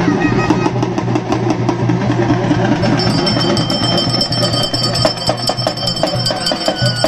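Folk barrel drums beaten with sticks in a fast, dense rhythm, over a steady low hum. A thin, high, steady tone joins about three seconds in.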